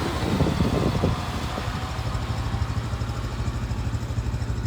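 John Deere tractor engine running steadily at a low, even throb, a little louder for about the first second.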